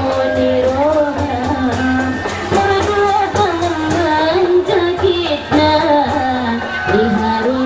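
A singer's voice, a long wavering melody with vibrato, over amplified band music with a steady beat.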